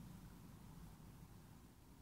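Near silence: faint background hiss with a low rumble.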